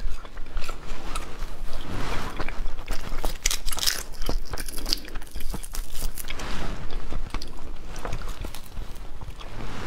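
Crunching and chewing of shrimp that are still frozen, with the crisp cracking of shells and frozen flesh. About four seconds in, a sharp cluster of cracks comes as a shrimp is broken apart by hand.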